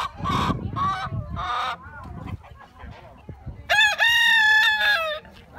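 Chickens clucking in short calls for the first couple of seconds, then a rooster crowing once, a long stepped cock-a-doodle-doo of about a second and a half, the loudest sound here.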